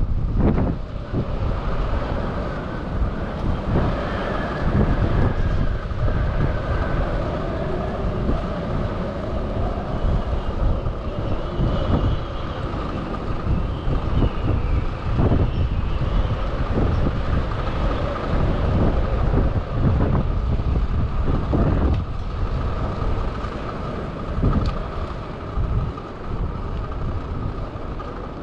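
Gusty storm wind buffeting the microphone in a continuous rumble, with faint wavering whistling tones above it.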